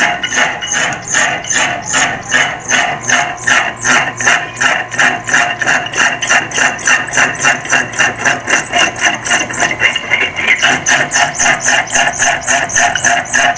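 Window-type air conditioner's fan motor running with a loud, regular pulsing rattle, a few beats a second. The motor shaft has play, which the technician takes as possibly a worn fan-motor bearing.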